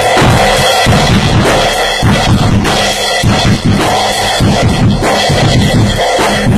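Acoustic drum kit played loudly in a steady groove, with bass drum, snare and cymbals, and no breaks.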